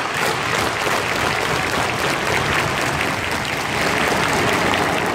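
Thousands of football fans in a stadium stand cheering and clapping together.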